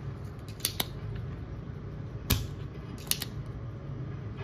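Spring-loaded desoldering pump (solder sucker) clicking as its plunger is cocked and snapped back to suck molten solder off circuit-board pins: a handful of sharp clicks, the loudest a little after two seconds in.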